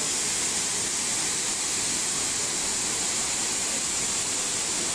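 Waterfall pouring into a rock pool: a steady, unbroken rush of falling water with a strong hiss.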